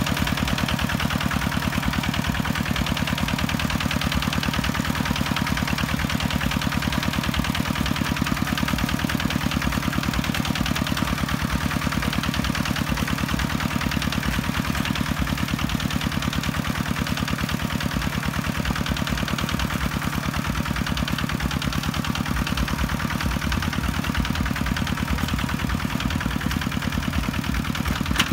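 Two-wheel walking tractor's single-cylinder diesel engine running steadily under load, pulling a plough with steel cage wheels through wet paddy mud.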